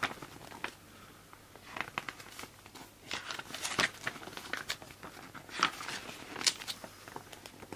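Rustling and crinkling of handled paper and packaging, with scattered light taps and clicks.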